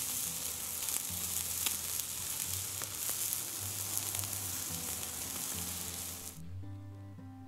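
Meat and pineapple skewers sizzling over hot campfire embers, a steady hiss with a few sharp pops and crackles; the sizzling cuts off suddenly near the end.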